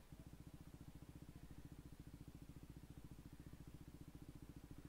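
KTM RC390's single-cylinder engine idling steadily: a low, even, rapid pulsing.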